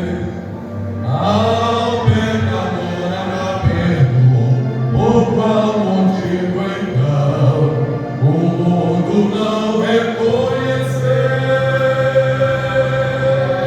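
A vocal group singing a Christian worship song, several voices together, with long held notes.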